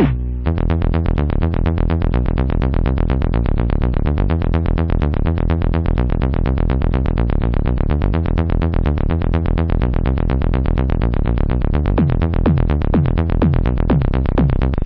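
Electronic dance music with a fast, steady pulsing beat over a sustained bass line, with a few falling synth sweeps near the end.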